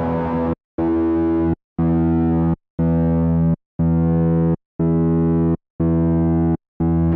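Electric guitar played through a Zoom G5n multi-effects patch. One sustained chord sounds in even pulses about once a second, each starting and stopping abruptly with silence in between.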